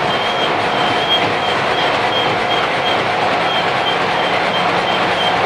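Bombardier T1 subway car running at speed through a tunnel, heard from inside the car: a steady, loud rumble of wheels on rail with a steady whine over it.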